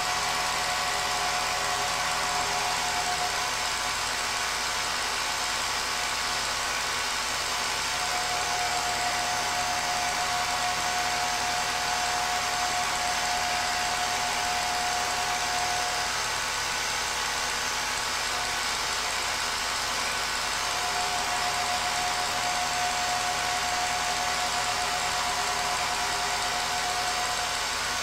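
Film projector running with a steady mechanical whirr. A high steady hum over it fades out and comes back a few times.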